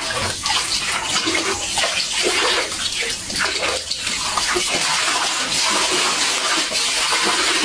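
Water pouring from an outdoor tap in a steady splashing stream, broken up irregularly as a dog laps at the falling water.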